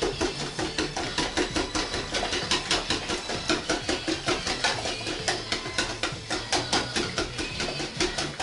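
Wire whisk beating pancake batter in a plastic mixing bowl, mixing in melted butter: quick, even strokes clicking and slapping against the bowl, about six a second.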